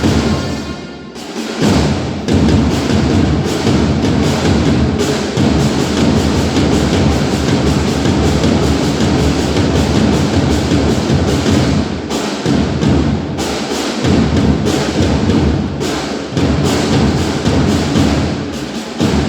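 Loud music with prominent percussion, many sharp drum and wood-block-like hits, briefly dropping away about a second in before the full sound returns.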